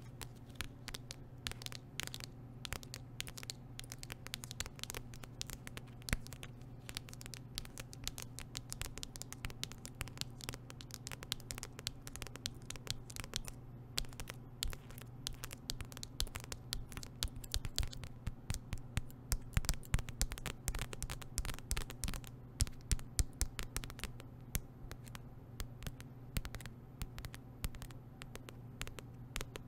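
Metal nail-ring tips tapping and scratching on a paper notebook cover close to the microphone: rapid, irregular light taps and scrapes, busiest and loudest a little past the middle.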